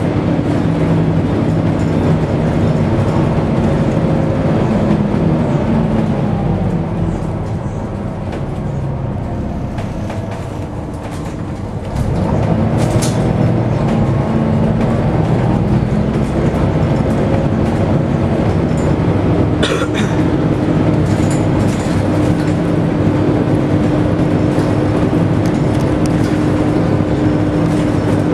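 Volvo B7TL double-decker bus's diesel engine running, with the loud cooling fan's steady drone, heard from the upper deck. The engine note falls away and quietens for a few seconds about a third of the way in, then rises sharply as the bus pulls away again. There is a single sharp knock about two-thirds through.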